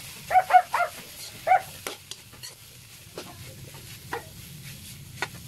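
A metal spatula stirring and scraping shredded bamboo shoots in a wok, with scattered light clicks against the pan. A dog yips about four times in the first two seconds.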